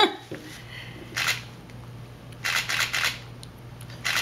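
Plastic baby spoon scraping and clicking against a plastic bowl of rice cereal: a sharp click, then three short scrapes.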